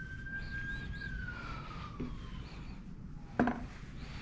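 A faint emergency-vehicle siren wailing, one slow rise and fall in pitch. A single sharp knock about three and a half seconds in.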